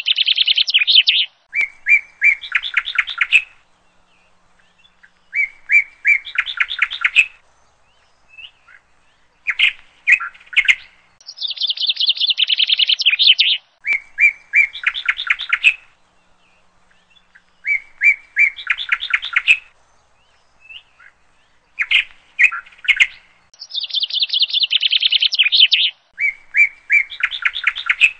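A songbird singing fast trilled phrases separated by short pauses. The same run of phrases comes round again about every twelve seconds, as in a looped recording.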